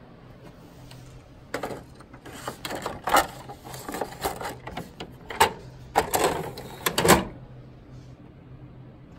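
Sheets of paper handled and pushed into a printer's paper tray: a run of rustles and sharp knocks for several seconds, loudest near the end, over a faint steady hum.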